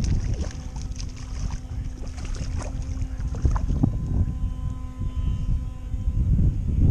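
Gusty wind buffeting the microphone, a heavy low rumble that rises and falls, with a few scattered light knocks.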